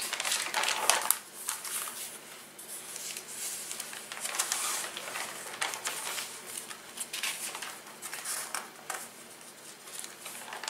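Glossy magazine pages rustling and crinkling as they are turned and smoothed flat by hand, in several separate bursts.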